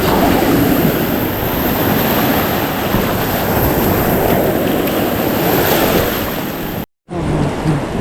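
Ocean surf washing on the beach with wind buffeting the microphone, a steady rush of noise that drops out for an instant near the end.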